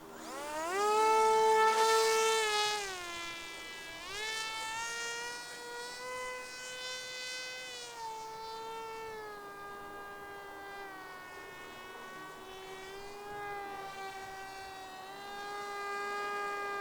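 Electric motor and propeller of a ZOHD Orbit Neon RC flying wing spooling up to full throttle for the hand launch, a high buzzing whine that is loudest for the first couple of seconds. It is throttled back about three seconds in, then opened up again and runs on with its pitch rising and falling as the throttle is worked in flight.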